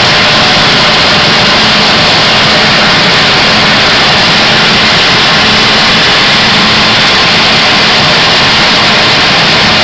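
5XZ-6 gravity separator running while sorting palm kernels from shells: a loud, steady noise from its air blower and vibrating deck, with a faint low hum.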